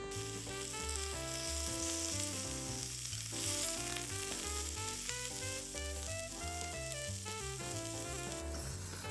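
Food sizzling hot in a pan, a steady crackling hiss, with instrumental background music.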